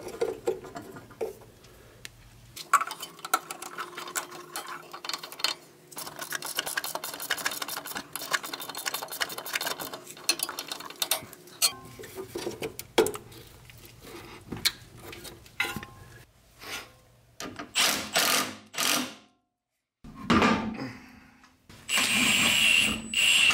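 Rapid clicking and rattling of a small hand tool on metal while the headlight level sensor is fastened to its bracket. Near the end, a cordless impact wrench runs steadily, driving a wheel's lug bolts.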